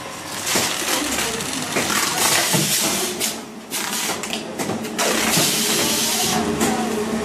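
Vertical form-fill-seal packaging machine for red pepper flakes running: a steady hum under irregular clacks and bursts of hiss from its pneumatic cylinders.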